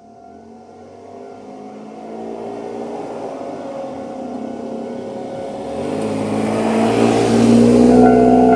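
A Tobu 350 series electric train approaching a railway level crossing, growing steadily louder with a hum of motors and swelling into a loud rush of wheels on rails near the end. The crossing's electronic warning bell rings faintly underneath and comes through clearly at the very end.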